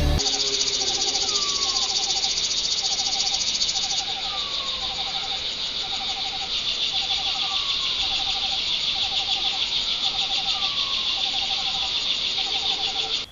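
Dense, steady chorus of insects chirping in fast pulses, with a short lower trill repeating about once a second and a faint falling whistle every couple of seconds.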